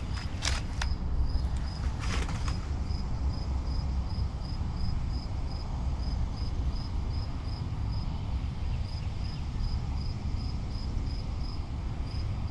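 Insect chirping in a steady train of short high pulses, about three a second, over a continuous low rumble, with a few short clicks near the start and again about two seconds in.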